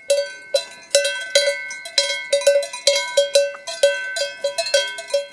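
Cowbell clanking irregularly, several strikes a second, each strike ringing on briefly, as a grazing cow moves.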